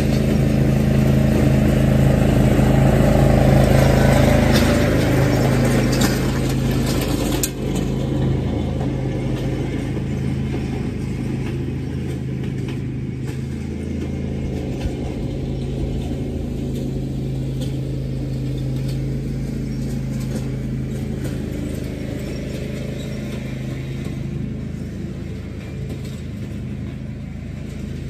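Riding lawn mower engine running at a steady speed. It is loudest for the first six or seven seconds, dips briefly, then runs on steadily at a lower level.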